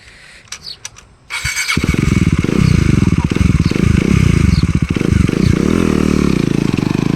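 KTM Duke 250's single-cylinder engine, with its silencer removed, is started: a brief crank, then the engine catches about two seconds in. It runs loud and open-piped, the pitch rising and falling as the throttle is blipped.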